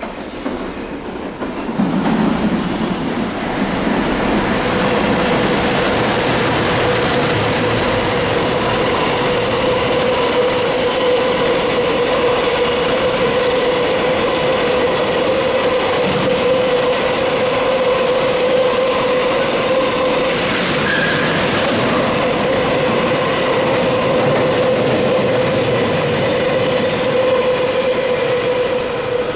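Container freight train passing close through a station: a loud, steady rumble of wheels on rail with a steady whine running through it. The sound swells about two seconds in.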